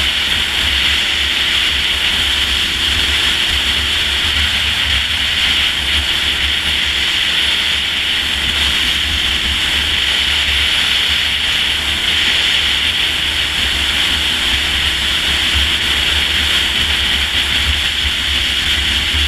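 Rushing wind on the microphone of a Honda VTR1000 V-twin motorcycle cruising at steady road speed, with the bike's engine drone held steady beneath it.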